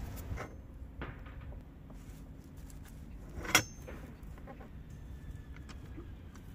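A few faint knocks and one sharp click about three and a half seconds in, as a small stone is set under the bicycle-towed camper's support to keep it from sinking into the soft soil.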